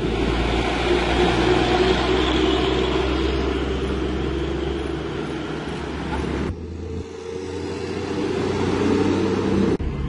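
Road traffic passing close by: a large diesel truck drives past, and after about six and a half seconds motorcycles go by, over a steady low engine hum.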